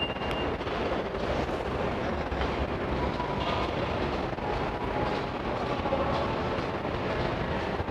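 A train running on rails, giving a steady, even noise with no clear start or stop.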